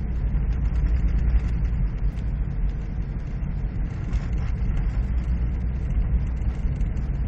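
Steady low rumble of a four-wheel-drive vehicle driving through snow with four-wheel drive engaged, engine and tyre noise heard from inside the cab.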